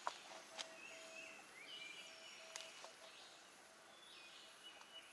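Faint woodland birdsong: short sliding calls repeated every second or so, with a few sharp clicks, the loudest right at the start.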